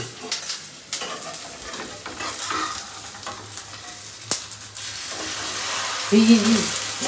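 Food sizzling and frying in a pan over a gas flame, with stirring and a few sharp clicks against the pan, the loudest about four seconds in.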